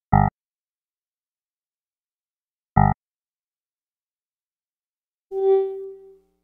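Computer system alert sounds: two identical short electronic blips about two and a half seconds apart, then a single pitched chime that rings and fades away over about a second.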